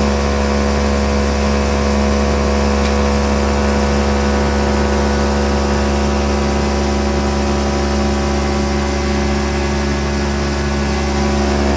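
An engine running steadily at a constant speed, with a strong low hum and a fixed set of overtones.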